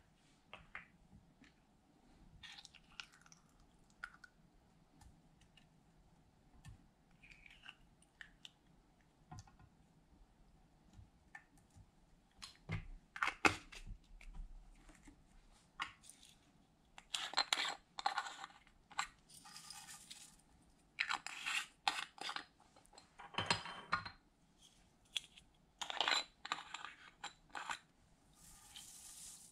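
Small plastic jars of gold glitter and sequins being shaken, tapped and handled, with glitter and sequins scattering into a glass baking dish: short irregular clicks and rattling bursts, sparse at first and coming thicker in the second half.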